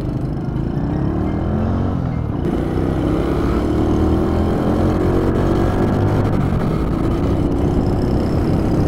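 Honda Super Cub's small single-cylinder four-stroke engine running under way, its pitch rising slowly as it accelerates.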